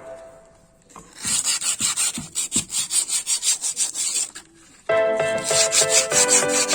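Quick, even rubbing strokes, about four a second, of a rusty electric water pump part being abraded by hand. Background music comes back in near the end.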